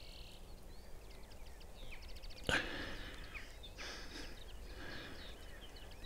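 Small birds singing from the hedgerow and fields: many short chirps and quick whistled notes, some in brief trills. A single sharp knock about two and a half seconds in.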